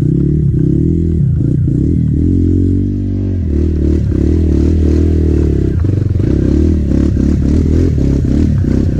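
Trail motorcycle engine running under changing throttle, revving up and down. The revs drop briefly about three seconds in, then pick back up.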